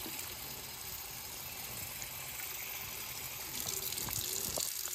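Tap running into a sink, water splashing as a fresh tattoo is rinsed clean of soap, a little louder near the end.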